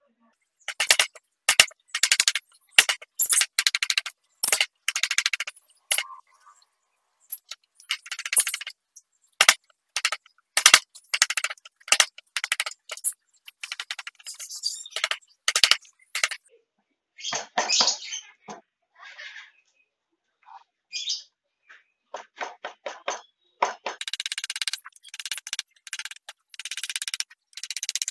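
A hand chisel cutting and paring wood in short, crisp strokes that come in quick runs with brief pauses. Near the end comes a longer stretch of steady scraping.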